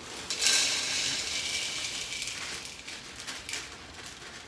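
Dry cereal being poured from crinkling plastic box liners into bowls: a burst of rustle and rattle starting about half a second in that dies down after a couple of seconds, with a few crackles of the bags.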